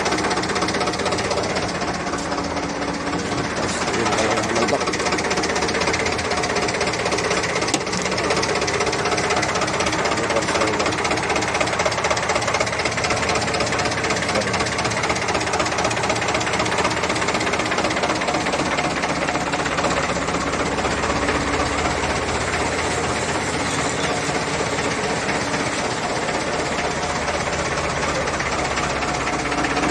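Turbocharged diesel engine of a Mercedes-Benz MB800 truck idling steadily, heard up close from under the truck.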